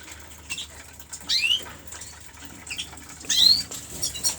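Caged canaries chirping: several short sweeping chirp calls, the loudest about three and a half seconds in, then a quick run of high ticking notes near the end.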